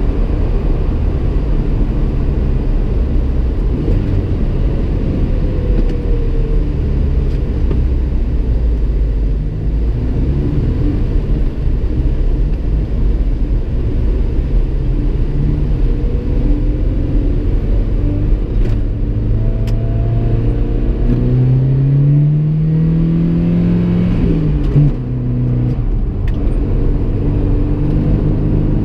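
1986 Toyota pickup's engine and road rumble heard from inside the cab while driving. The engine note sags while the truck slows and turns, then rises steadily as it accelerates. Near the end there is a brief drop as a gear is shifted, then it runs steadily.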